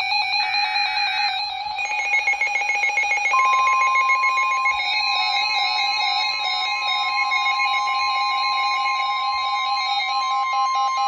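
NOAA Weather Radio broadcast of a new severe thunderstorm warning: a last short burst of the SAME digital header, then the steady 1050 Hz warning alarm tone from about three seconds in. Under it, several weather alert radios sound their own rapid beeping alarms.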